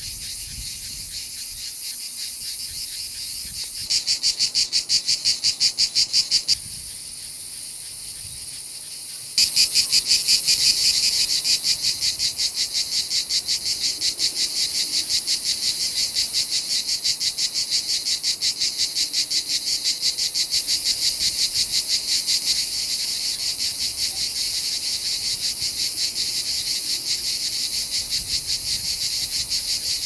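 Cicadas singing: a dense, rapidly pulsing high buzz. It steps louder and softer a few times in the first ten seconds, then stays loud.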